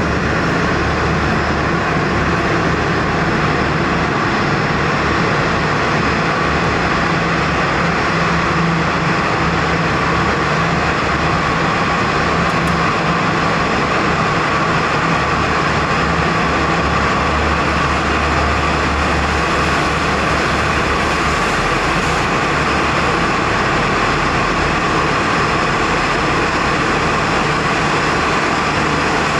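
Boeing 787-10's Rolls-Royce Trent 1000 jet engines running at taxi idle, a loud, steady rumble with a constant hum whose low tones shift about halfway through as the aircraft turns.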